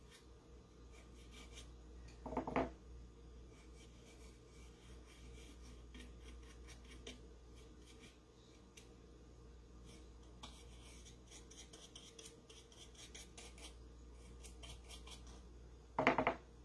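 Small paintbrush scratching along the edges of a wooden pumpkin cutout in quick, faint repeated strokes. Two brief louder sounds stand out, about two seconds in and near the end.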